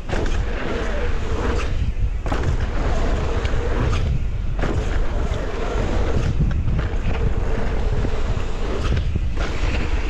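Wind buffeting the microphone of a mountain bike ride, with tyres rolling on a dirt trail and the bike rattling over rough ground in irregular knocks.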